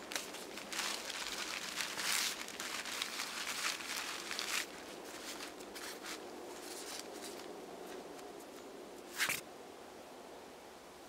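Nylon tent fabric rustling and crinkling as a dome tent's rain fly is pulled over and fastened by hand, busiest in the first half. One brief sharp sound stands out about nine seconds in.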